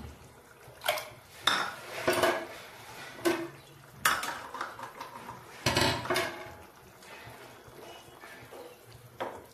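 Metal cooking utensils clinking and knocking against a pan: about ten sharp clanks at irregular intervals.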